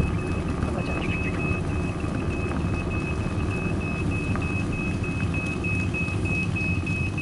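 Steady low rumble of a small vehicle rolling along a paved path, with wind on the microphone. Over it, a high electronic beep repeats about four times a second.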